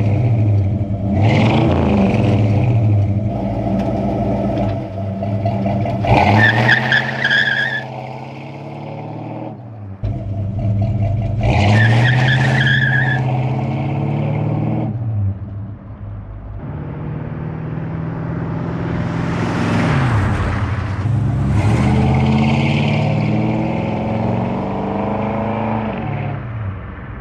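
1965 Ford Fairlane's 289 V8 revved and driven hard, the engine note rising and falling several times as it accelerates away. A high squeal sounds twice, around six and twelve seconds in.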